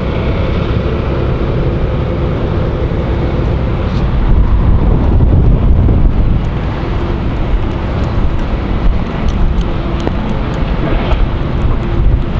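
Wind buffeting the microphone, a low rumble that turns louder and gustier about four seconds in.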